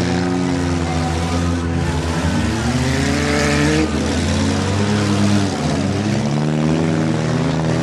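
Several demolition derby cars' engines running and revving at once, their pitches rising and falling, loud and continuous.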